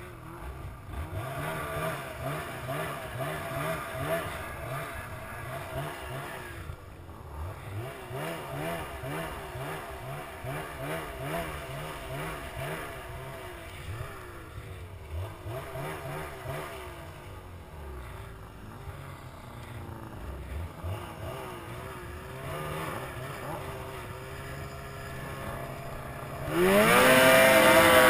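Ski-Doo 800 E-TEC two-stroke snowmobile engine running at low revs, its pitch wobbling up and down as the sled moves slowly. About a second and a half before the end the throttle opens fully: the engine jumps much louder and its pitch climbs fast as the sled accelerates hard.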